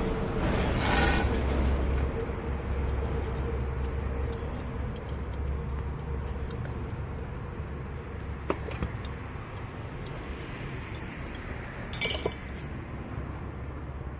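Light metallic clinks from tools and motor parts being handled, one about eight seconds in and a short cluster near the end, over a low background rumble that fades over the first few seconds.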